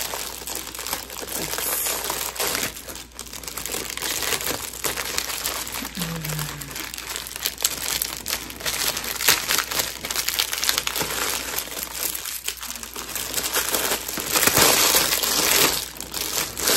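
Plastic mailer bag and plastic wrapping crinkling as a package is cut open with scissors and unpacked. The crinkling is loudest near the end, as the plastic-wrapped contents are pulled out.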